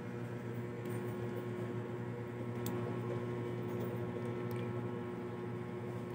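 A ladle stirring jelly salad in a plastic tub: faint squelching as gelatin cubes and fruit are turned through the creamy dressing, with a few faint clicks. A steady low hum runs underneath.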